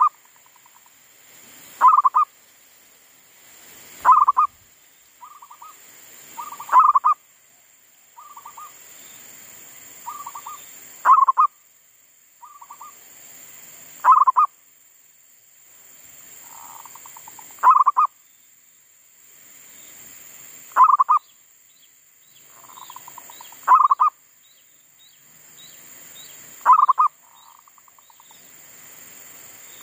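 Zebra dove cooing its song over and over: a loud, rippling phrase about every three seconds, with softer trilled notes between them.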